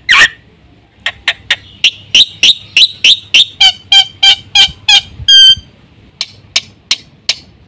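Black-winged starling (jalak putih) singing: a fast run of sharp repeated notes, about three or four a second, then one clear whistle with overtones about five seconds in, followed by a few sharp separate chips.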